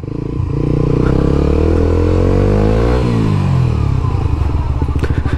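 Suzuki GSX-R150's single-cylinder engine pulling hard under a quick-action throttle, its pitch rising steadily for about three seconds. It then drops as the throttle closes and settles to a low, pulsing run. A single click comes near the end.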